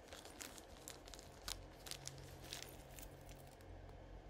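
Faint crinkling of a clear plastic bag of small gold-tone costume jewelry pieces being handled, a scattered run of short crinkles and ticks over a low steady hum.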